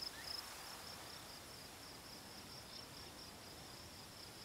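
Crickets chirping faintly: a steady string of short, high-pitched chirps over a soft outdoor hiss.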